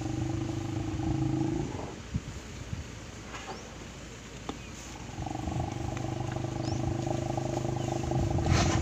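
Asian elephant rumbling: a low, steady rumble that stops after about two seconds and starts again about five seconds in.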